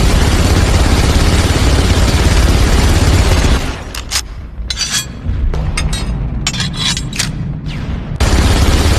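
MG42 machine gun firing in long continuous bursts, its shots too fast to hear apart. About three and a half seconds in the firing stops, leaving a low rumble and a few sharp clinks, then it starts again abruptly near the end.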